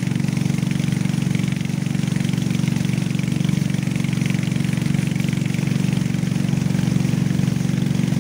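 A small wooden boat's engine runs steadily under way, a constant drone that holds one pitch throughout.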